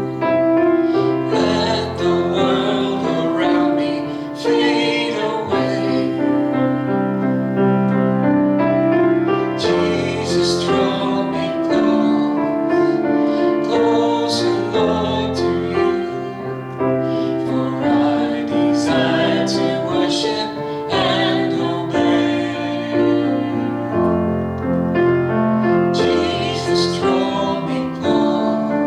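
Slow worship music played on piano, with held chords that change every second or two.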